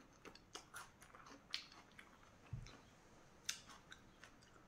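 Faint close chewing of a mouthful of green vegetable, with a few soft crisp clicks and one dull low thump about halfway through.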